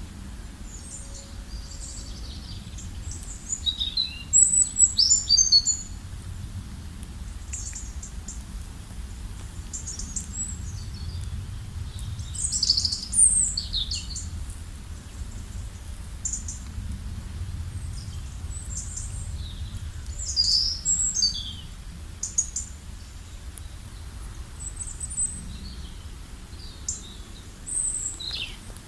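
Several wild birds chirping and calling in short, high, quick phrases, in loud clusters about four to six seconds in and again around twelve to fourteen seconds, over a steady low rumble.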